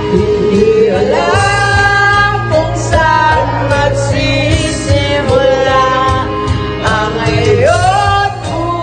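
A voice singing long, held notes over a backing track.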